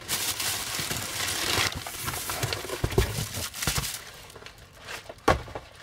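Plastic bag and kraft packing paper crinkling as a bagged item is pulled out of a cardboard box, strongest in the first second and a half. A few dull thumps follow as it is set down, and there is one sharp knock near the end.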